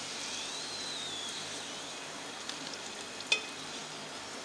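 Hot oil sizzling steadily in a 3-ply stainless steel fry pan as a spatula scrapes fried potatoes out. There are light clicks of the spatula on the pan and one sharp tap about three seconds in.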